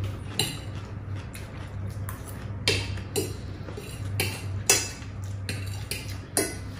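Metal forks clinking and scraping on ceramic plates while eating, about a dozen irregular sharp taps, over a low steady hum.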